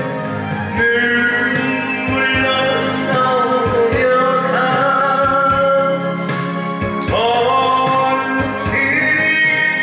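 Trot song sung live: a singer's voice holding and sliding between long notes over a steady accompaniment.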